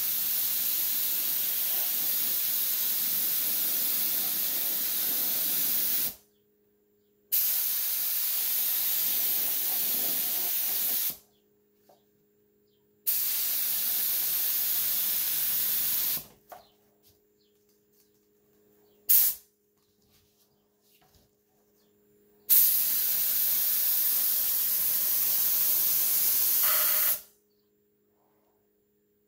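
Gravity-feed spray gun hissing as it sprays paint onto an RC car body shell, in four long bursts of roughly three to six seconds each and one brief blip between them, each starting and cutting off sharply.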